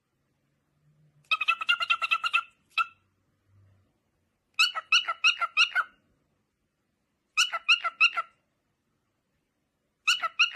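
A parrot making a rapid, chattering series of short pitched calls, about eight to ten a second, in bursts of about a second with pauses of one to two seconds between them. There are four main bursts and one short call in between.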